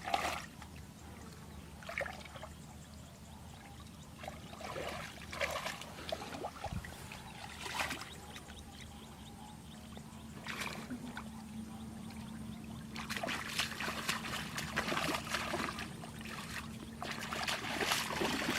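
Water trickling and splashing in irregular bursts, busier in the last few seconds, over a faint steady hum.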